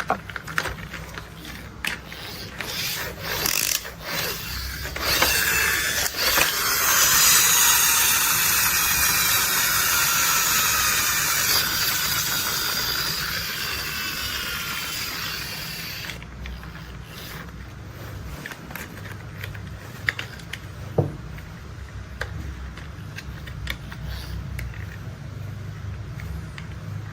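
Toy construction vehicle mechanisms clicking and ratcheting. A loud rushing, whirring sound with sliding pitches runs for about ten seconds in the middle, and then the scattered clicks return.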